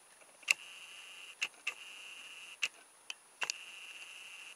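Zoom motor of a FujiFilm FinePix S4800 bridge camera whining in three short runs as the lens zooms out, with a sharp click as each run starts and stops.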